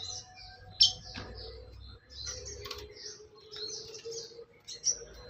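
Small aviary songbirds chirping and twittering in quick short high notes, with a sharper, louder call about a second in and another near the end, over a faint steady hum.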